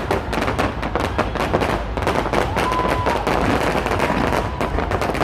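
Fireworks display: a dense, rapid crackle of many small bursting reports, continuous throughout, with a faint thin whistle around the middle.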